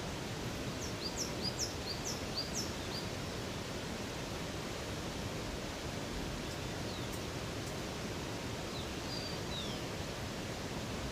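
Steady rush of flowing river water, with a small bird singing a quick run of high, falling notes about a second in and adding a few more high calls later.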